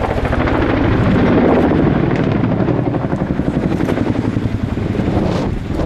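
RAF Chinook HC2/3 tandem-rotor helicopter passing low overhead, its rotor blades beating in a fast, steady rhythm over the engines' drone. Loudest about a second and a half in, then easing a little near the end.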